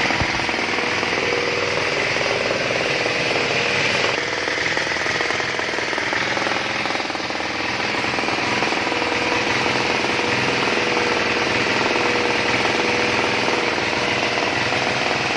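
Motorized disinfectant sprayer running steadily, its pump chattering under the hiss of spray from the wand.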